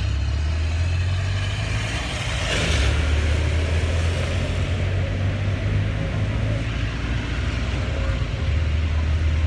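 Road traffic on wet asphalt: a vehicle passes with a swelling hiss of tyres on the rain-soaked road about two and a half seconds in, over a steady low rumble.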